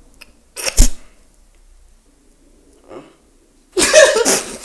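A short, loud cough-like vocal noise about a second in, made to break the other player's straight face. Near the end, laughter breaks out.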